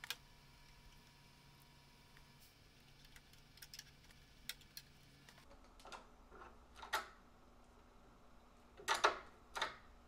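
Hand screwdriver driving the screws of a metal deadbolt latch faceplate into a wooden door edge: scattered small clicks and scrapes of the tip in the screw heads, the loudest few in the last few seconds.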